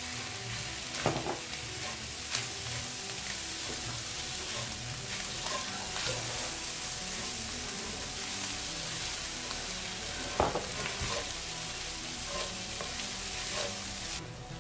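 Minced chicken sausage and capsicum sizzling over a high flame as a spatula stirs them through the pan, with a steady hiss and scattered light knocks of the spatula against the pan; one sharper knock about ten seconds in.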